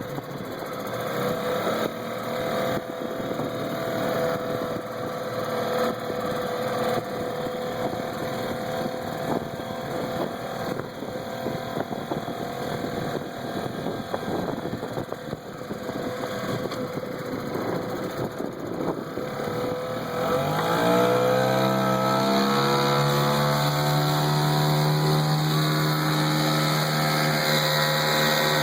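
1973 Mercury Model 40 4 hp single-cylinder outboard motor running steadily at low speed. About two-thirds of the way through it revs up: the pitch rises, then holds at a higher, louder speed.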